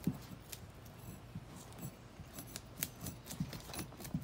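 Knives scraping the scales off small fish on a woven bamboo mat: a run of short, irregular scratching clicks.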